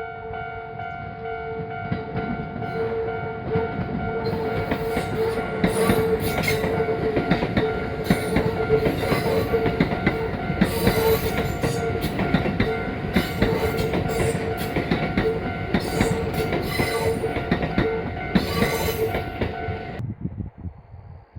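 Kintetsu electric train passing close by, its wheels clattering and clicking over the rails as it builds to its loudest. A steady ringing tone runs underneath. The sound cuts off abruptly near the end.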